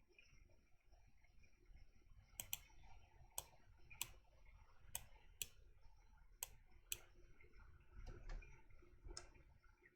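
Sharp clicks of a computer mouse and keyboard in use, about ten single clicks at an uneven pace, over faint room hiss.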